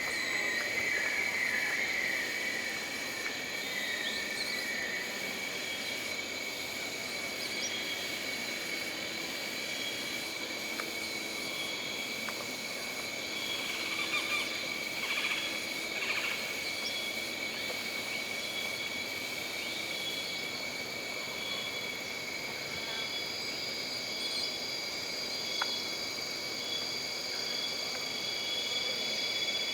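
Jungle ambience of insects droning steadily at several high pitches, with one call repeating about every second and a half and a brief flurry of other calls about halfway through.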